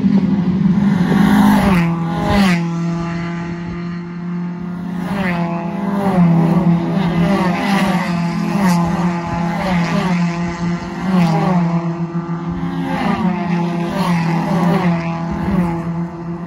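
Nissan Pulsar race cars accelerating down the main straight and passing close by one after another, each engine note dropping in pitch as it goes by, several times.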